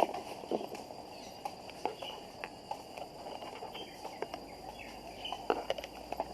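Outdoor ambience with faint bird chirps over a run of irregular short clicks and knocks.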